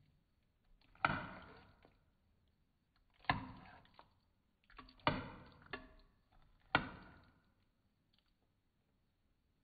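Five sharp knocks, spaced unevenly about one to two seconds apart, each ringing out briefly before the next.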